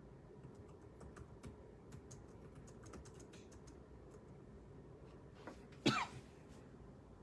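Scattered clicks of typing on a computer keyboard, and about six seconds in a single short, loud throat sound from the person at the keyboard, falling in pitch.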